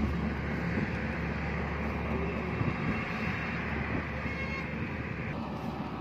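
Steady rushing background noise with a low hum; no gunshot.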